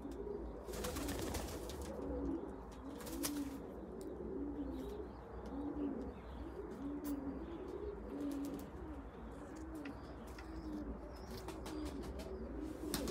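Domestic pigeons in a breeding loft cooing, many low arched coos overlapping one after another, with a few brief rustling noises about one and three seconds in.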